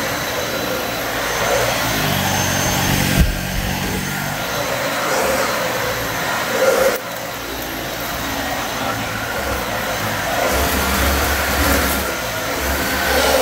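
Dyson Ball Multi-Floor 2 upright vacuum running steadily over carpet, going back over the area that the Kenmore upright has already cleaned. There is a sharp click about three seconds in.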